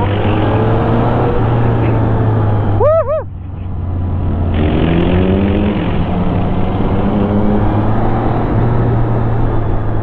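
Yamaha XSR900's inline-three engine running under load, its pitch rising as it accelerates, with wind rushing over the helmet microphone. About three seconds in there is a brief two-note pitched sound, then the engine drops off for a moment and builds back up.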